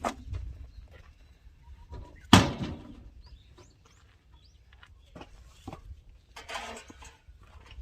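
Firewood being split with an axe: one sharp, loud strike a little over two seconds in, with a few lighter knocks and a brief scraping rustle of wood later on. Faint bird chirps in the background.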